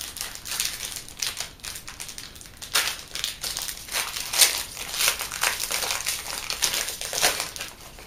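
Plastic wrapper of a trading-card booster pack being torn open and crinkled by hand: a string of irregular crackles.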